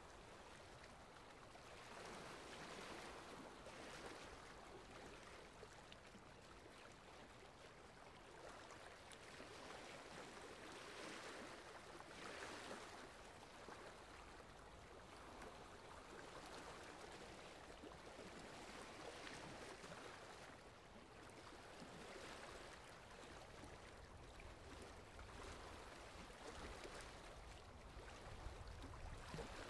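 Faint running water from a relaxation sound track, swelling and easing every few seconds; a low rumble joins in over the last few seconds.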